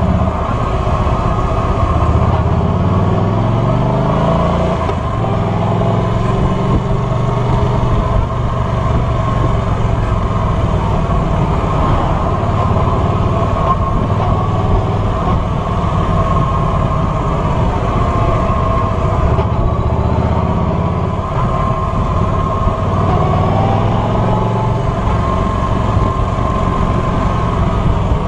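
Cruiser motorcycle engine running under way, heard from the rider's seat; its pitch rises between about two and five seconds in as it accelerates, then holds fairly steady.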